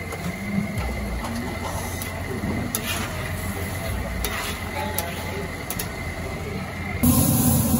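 A long metal spatula scraping and clicking on a large flat tawa griddle as tawa pulao is gathered and scooped onto a plate, with voices in the background. Near the end it switches abruptly to louder, steady sizzling of chopped peppers and onions frying on the hot griddle.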